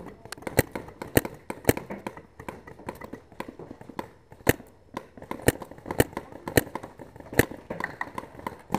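Paintball markers firing: sharp single pops at uneven intervals, about nine loud ones, with many fainter pops between them.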